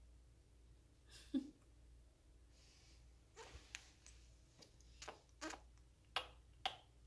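Faint short clicks, about eight in the last few seconds and one earlier, over quiet room tone. They fit a baby sucking on a pacifier.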